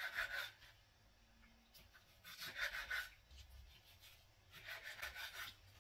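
A long kitchen knife slicing through raw chicken breast on a bamboo cutting board. There are three scraping cutting strokes about two seconds apart.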